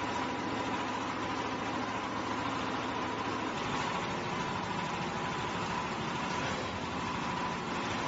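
Diesel concrete mixer running steadily, an even engine-and-machinery drone with a thin steady whine over it.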